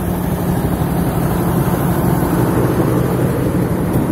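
All-terrain vehicle's engine idling steadily with an even, low hum.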